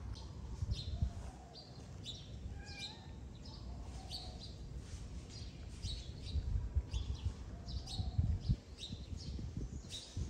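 Small birds chirping repeatedly in short high notes, about one or two a second, over an uneven low rumbling noise that grows louder about six seconds in.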